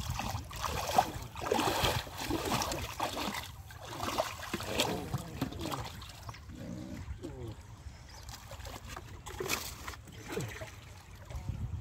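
Muddy water splashing and sloshing around people's legs and hands in a shallow pool, with water poured and trickling from a plastic bucket into a metal pot. It is busiest in the first half and quieter after.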